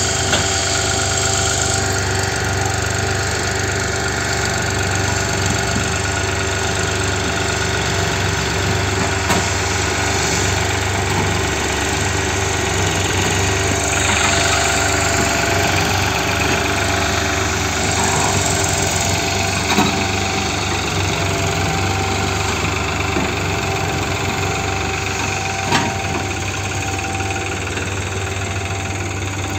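New Holland 5500 tractor's diesel engine running steadily under load as it pulls two trailers heavily loaded with sugar cane. There are a few brief sharp clacks along the way.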